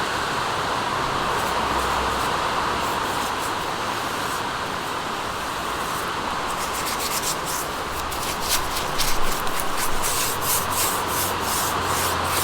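Paintbrush strokes rubbing over a metal mesh box, heard as short scrapes that come faster and louder from about halfway through. A steady hiss of rain lies underneath.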